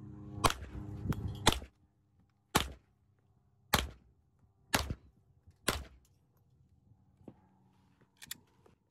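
Semi-automatic pistol fired about six times at a steady pace, roughly one shot a second. Two faint clicks follow near the end.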